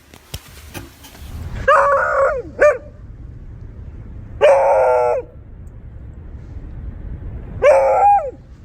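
Beagle giving three loud, drawn-out barks, each under a second long and dropping in pitch at the end, with a short extra yelp right after the first.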